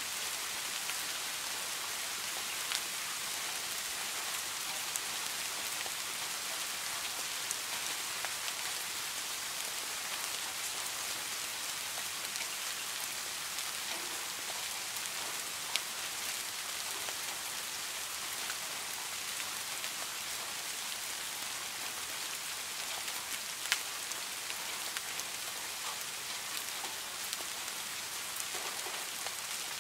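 Steady rain falling on a garden fish pond: a dense, even hiss of drops hitting the water, with a few louder single drops standing out now and then.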